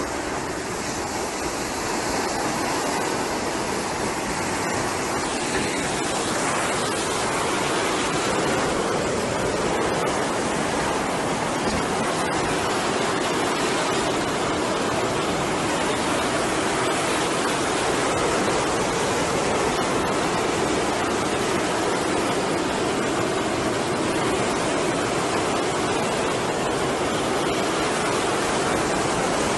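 Steady rush of breaking surf and foaming waves along a beach.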